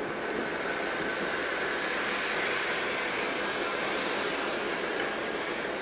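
Kitson & Co 0-6-0T steam tank locomotive blowing steam from its open cylinder drain cocks: a loud, steady hiss that starts abruptly.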